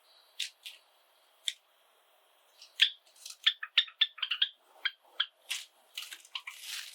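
Pet Java sparrows chirping: a few single sharp chips, then a quick run of short clicking notes, and a noisier rustling burst near the end.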